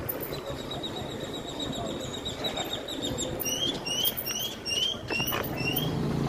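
A bird chirping: a short string of quick rising chirps, about three a second, after a fast run of high ticks. Under it is a steady rush of wind and bicycle tyres rolling on paving stones.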